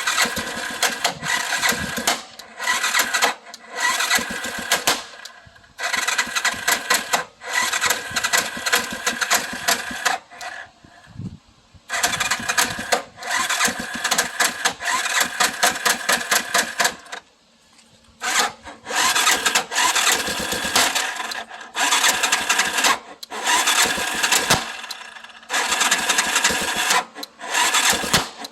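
Yamaha Big Bear ATV engine cranked over and over in repeated bursts with short pauses between them, each burst a fast metallic clatter. It has a noisy metallic tock and is hard to start.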